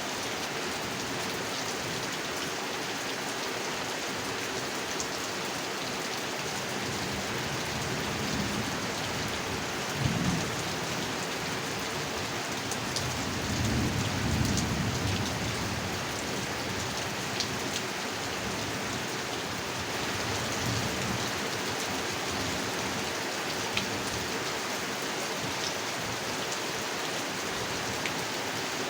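Steady rain falling on a pond's surface, with scattered sharper drips and two low rumbles of thunder, one about ten seconds in and a longer one around fourteen seconds.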